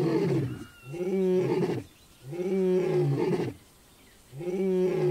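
Male African lion roaring: a run of deep, drawn-out calls, each about a second long, with short pauses between them, three full calls in all.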